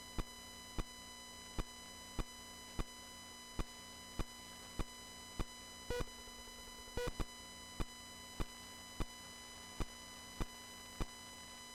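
Electrical line noise from a USB floppy drive formatting a disk, picked up by headphones sharing its front panel: a steady whine of many high tones over faint hiss. Sharp clicks come about every 0.6 to 0.8 seconds. Two short, louder buzzy bursts fall about halfway through, a second apart.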